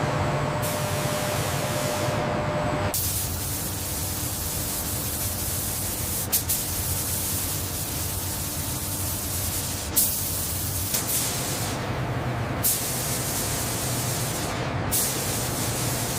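Steady hissing noise with a low hum beneath, broken by a few sharp clicks. A faint steady tone cuts off about three seconds in.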